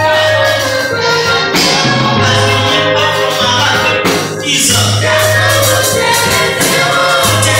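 A group of voices singing a lively gospel song together, with a lead voice on a microphone, over held bass notes and busy, rhythmic jingling percussion.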